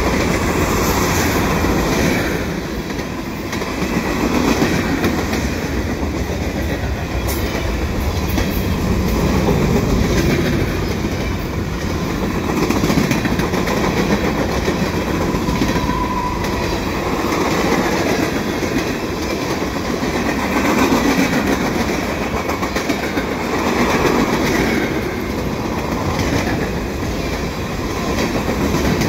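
Freight train cars, mostly covered hoppers, rolling past close by: a steady rumble of steel wheels on the rails with clickety-clack, rising and falling every few seconds.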